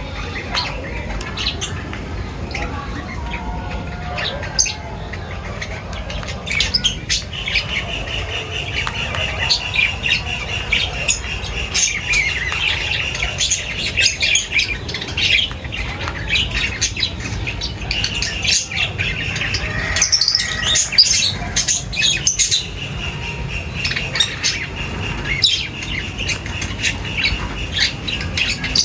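A flock of birds chirping and squawking in many short, sharp calls, with a steady high-pitched trill running under them for long stretches.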